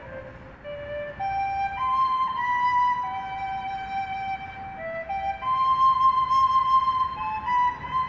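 A slow melody of long, clear held notes, each lasting about half a second to two seconds and stepping up and down in pitch, over a faint low background hiss.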